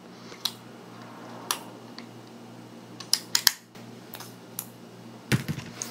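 Small objects handled and set down on a desk: scattered sharp clicks and taps, several in quick succession about three seconds in, over a low steady room hum.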